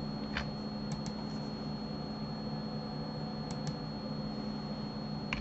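Steady low hum of room and microphone noise, with a few light clicks from a computer keyboard and mouse: a pair about a second in, another pair a little past three seconds, and one near the end.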